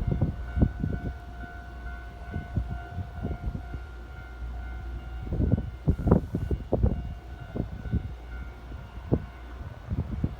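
Keikyu electric train running past, wheels knocking irregularly over rail joints, with a steady whine through the first part and louder knocks about six seconds in.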